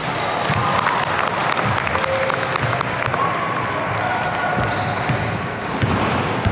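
Basketball being bounced on an indoor court during play, with many quick knocks and a background of voices in a large hall.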